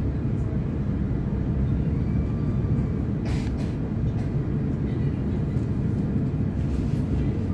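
Steady low rumble of a c2c Class 720 Aventra electric multiple unit running along the line, with a short rush of noise about three seconds in.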